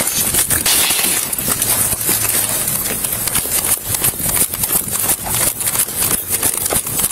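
Footsteps on pavement with a chest-worn police body camera knocking and rubbing against the uniform as the wearer walks: a run of irregular knocks over a constant hiss.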